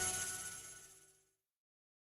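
The last notes of a Nokia E6 ringtone dying away, sustained tones fading out over about a second and a half, then dead digital silence.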